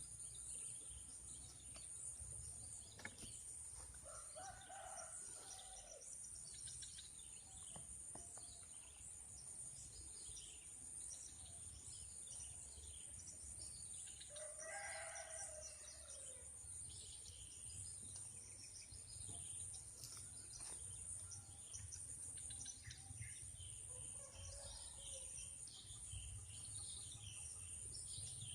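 A rooster crowing three times, a little distant, the middle crow the longest and loudest, over a steady high drone of insects and small birds chirping.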